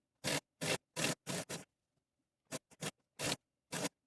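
Short scratchy rustles, about a dozen in irregular groups, each cut off into dead silence: fabric and sewing tools being handled.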